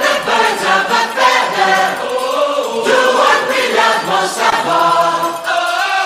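Music with singing voices.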